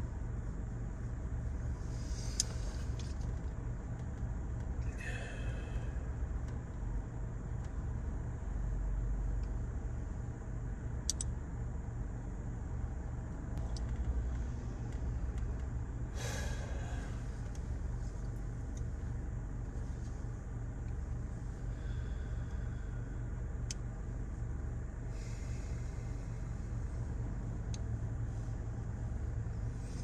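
Steady low rumble of a car driving, engine and road noise heard from inside the cabin, with a few brief, fainter higher sounds over it.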